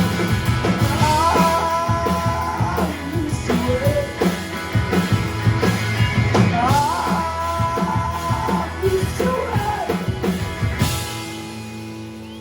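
Live indie rock band playing the closing bars of a song: drums, bass and guitars under a held melody line that bends upward twice. The drums stop about eleven seconds in, leaving the final chord ringing and fading.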